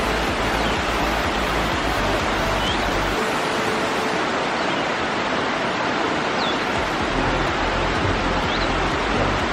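Waterfall rushing: a loud, steady wash of falling water, with a few faint short high chirps over it.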